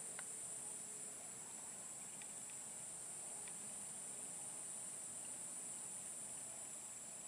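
Steady, high-pitched buzzing drone of insects, crickets or cicadas, with a few faint ticks.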